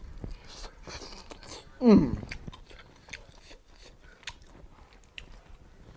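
Close-up chewing and biting on bony cooked meat, with small crunches and clicks as the meat is torn and bones are worked. About two seconds in, one short, loud vocal sound falls in pitch.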